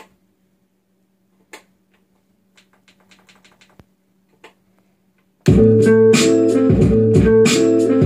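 Soft clicks of buttons pressed on a hardware sampler over a faint low hum, then about five and a half seconds in a loud boom-bap hip-hop beat starts playing from it: steady drum hits, bass and a looped, chopped sample.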